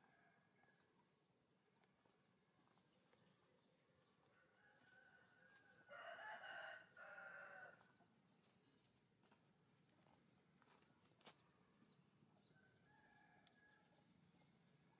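A rooster crows once, about six seconds in, a call of nearly two seconds with a short break in the middle. Short, high chirps repeat faintly throughout.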